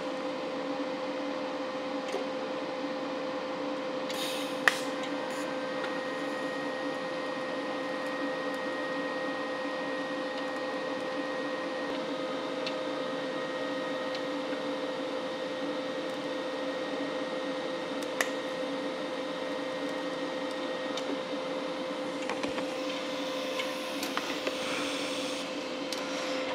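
TIG welder running with a steady electrical hum while tack-welding a broken spot weld on a metal folding chair's tubing, with sharp clicks about 5 and 18 seconds in.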